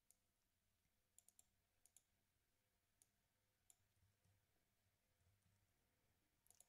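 Near silence with a few faint, scattered clicks of a computer keyboard and mouse, some coming in quick clusters.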